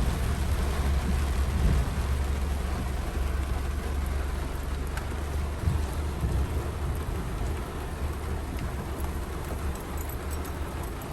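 Rain falling during a thunderstorm, an even hiss over a steady low rumble.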